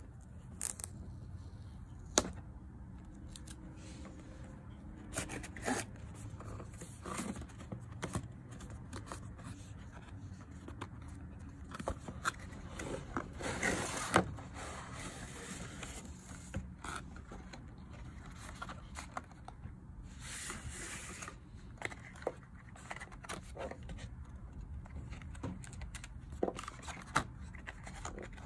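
Cardboard packaging handled by hand: fingers tapping, rubbing and scraping on a mouse's retail box, with scattered clicks. About halfway through the inner cardboard tray slides out of its sleeve with a longer scraping rush, and a shorter scrape follows about two-thirds of the way in.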